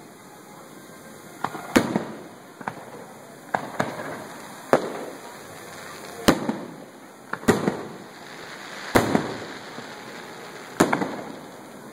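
Aerial fireworks shells bursting: about ten sharp bangs at irregular intervals, each followed by a rolling echo that dies away.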